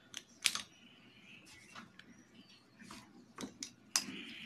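A few sharp clicks and light taps of plastic felt-tip sketch pens being handled: one pen set down and another picked up. The loudest click comes about half a second in, with two more near the end.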